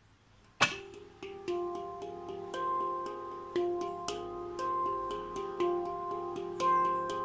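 Nimo handpan tuned to an F low pygmy scale, played by hand. After a brief quiet moment a first firm note sounds about half a second in. A slow stream of gentle, ringing notes follows, each one sustaining and overlapping the next.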